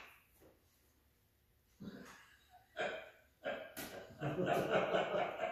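Near silence at first, then soft muffled voice sounds and breaths from about two seconds in, with a short sharp tap near four seconds.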